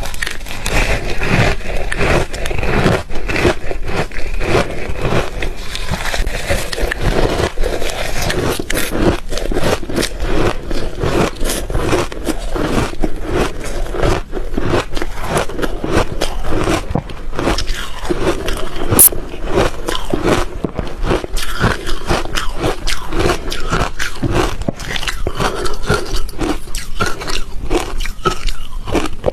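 Ice being bitten and chewed: a rapid, unbroken run of crisp cracks and crunches.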